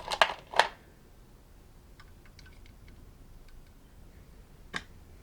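Small hard plastic game pieces clicking and clattering: a quick run of sharp clicks in the first second, then a few faint light ticks and one more click near the end.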